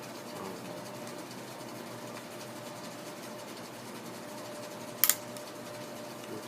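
Two sharp clicks in quick succession about five seconds in, over a steady low hum.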